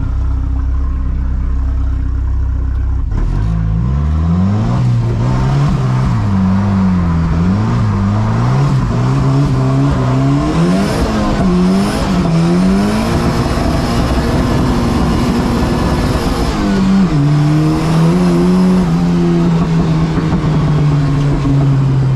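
Turbocharged Volvo wagon's engine heard from inside the cabin: idling steadily, then about three seconds in the revs climb and rise and fall again and again for roughly ten seconds as the car is spun through a donut. It then settles to steadier revs, stepping up once about seventeen seconds in.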